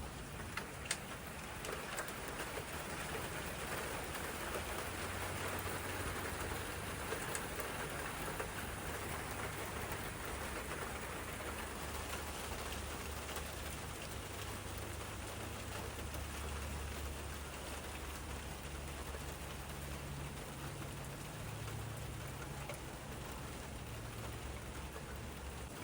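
Steady heavy rain falling during a thunderstorm, with a few sharper drops striking close by and a low rumble underneath for most of it.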